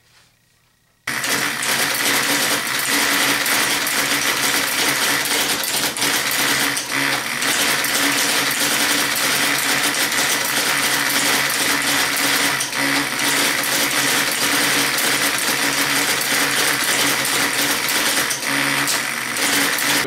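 1977 IBM Selectric II electric typewriter: its motor starts about a second in and runs with a steady hum while keys are typed, the mechanism clattering with each stroke. With its belt pulley broken and escapement gears worn, it doesn't advance as it should.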